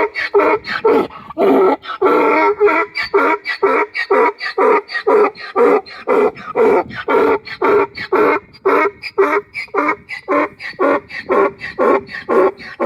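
Donkey braying loudly: one long, unbroken run of hee-haws, about two to three a second.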